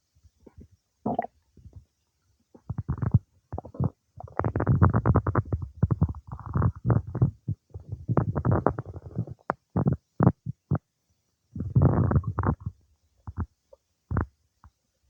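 Human stomach and intestines gurgling and rumbling while digesting cake: bubbly bursts of rapid gurgles. The longest run lasts about five seconds in the middle, and shorter gurgles follow toward the end.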